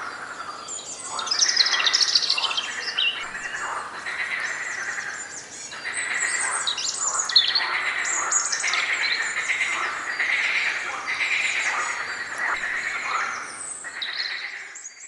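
A chorus of forest birds, several at once, chirping and singing in quick overlapping calls and trills, fading out near the end.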